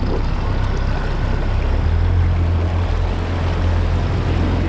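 Boat motor running steadily, its low hum growing louder about two seconds in.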